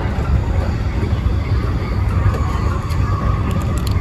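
Kintetsu electric commuter train running along the line, heard from inside at the front of the car: a steady low rumble of wheels on rail, with a faint whine about halfway through and a few light ticks near the end.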